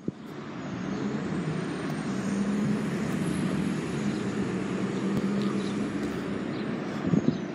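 2016 Nova Bus LFSe electric bus standing at a stop, running with a steady low hum and a faint high whine that slowly rises and then falls. A couple of light knocks come near the end.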